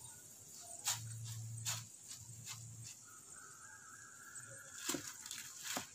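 Stainless-steel wire spider strainer clinking a few times against the frying pan and plate as fried cauliflower is lifted out of the oil and drained. A faint low hum runs under the first few clinks.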